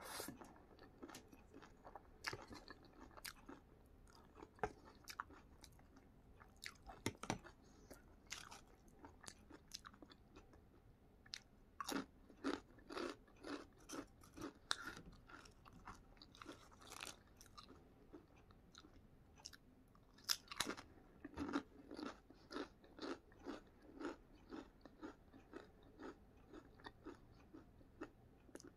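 A person chewing and crunching food close to the microphone, with the wet mouth sounds of eating, in runs of about two to three chews a second.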